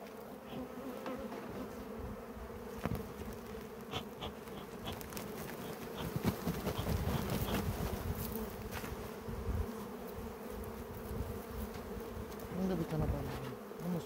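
Honeybees from an open hive buzzing in a steady, even hum, with a few light clicks and knocks scattered through it.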